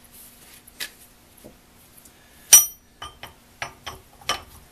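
A steel flat chisel clinks sharply against metal with a brief ring about two and a half seconds in, then a handful of lighter metallic clicks and taps as its shank is slid into the chuck of a Skil Model 731 rotary hammer.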